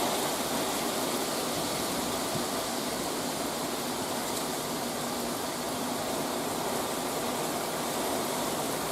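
Torrential rain from a severe thunderstorm pouring down, a steady, even hiss without a break.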